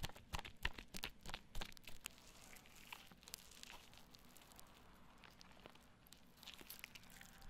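Soap foam squished and rubbed by hands over the ears of an ear-shaped binaural microphone: a crackle of popping bubbles and wet squishes. Sharp pops come thick and fast for the first two seconds, then the crackle turns softer and fainter.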